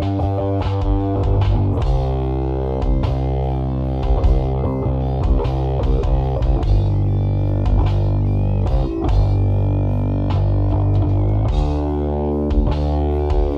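Isolated electric bass guitar part from a slow rock recording, holding long low notes, with drum hits and guitar bleeding through behind it.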